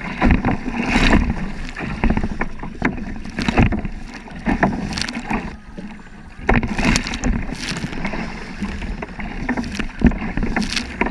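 Water splashing and sloshing against a kayak on choppy, wind-driven water, in irregular bursts with a low rumble underneath.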